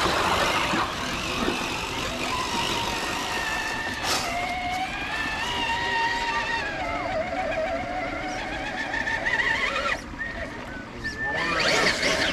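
Electric motor and gear drive of a radio-controlled rock crawler whining, its pitch rising and falling as the throttle is worked, with a climbing whine near the end.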